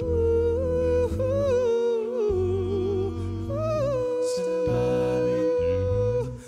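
Wordless a cappella vocal harmony: a group of singers humming and holding chords, a lead voice sustaining a long note with vibrato over a deep sung bass line.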